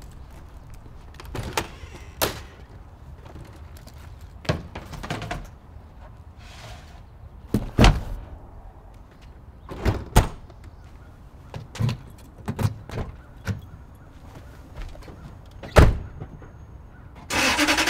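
A series of separate thunks, clicks and door shuts as snowboard gear is stowed in a pickup truck camper. Near the end a Toyota Tundra pickup's engine starts suddenly and keeps running.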